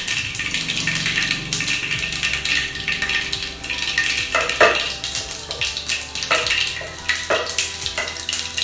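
Mustard seeds spluttering in hot vegetable oil in a pan: a steady crackling sizzle with a few sharp, louder pops in the second half.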